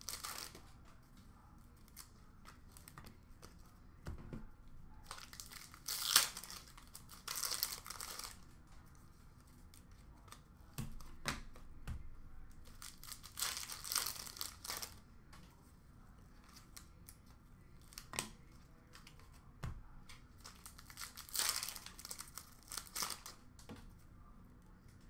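Trading card packs being torn open and their wrappers crinkled, in short rustling bursts every few seconds.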